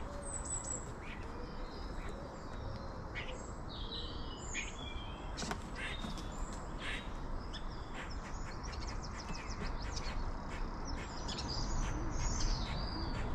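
Several small birds chirping and calling, with short notes scattered throughout and a fast trill of rapid notes a little past the middle, over a steady low background rumble.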